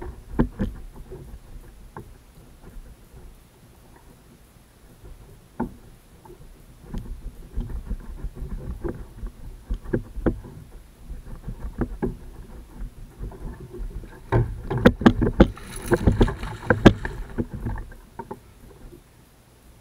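Knocks and bumps against a plastic kayak hull with water sloshing. About three-quarters of the way through comes a louder burst of splashing and knocking as a hooked tarpon is handled at the boat's side.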